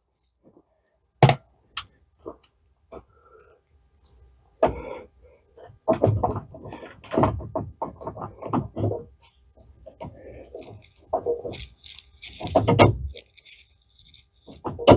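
Blind rivets being set with a rivet tool into a metal bracket on a steel roll cage: two sharp snaps about a second in, then irregular clacks and rattling of the tool and metal parts being handled.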